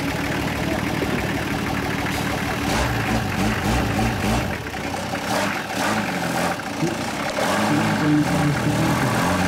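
Off-road vehicle's engine running at low revs close by, steady at first, then rising and falling in pitch over the last few seconds as the throttle is worked. A few short knocks sound in the middle.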